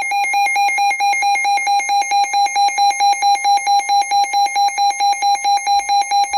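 Electronic emergency alert alarm: a shrill tone beeping rapidly and evenly, about four to five beeps a second, signalling an incoming severe thunderstorm warning.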